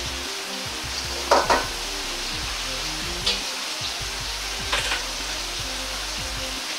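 Pork-and-tofu hamburg steaks sizzling in oil in a carbon-steel wok over low heat: a steady frying hiss with a few sharp pops, the loudest about a second and a half in.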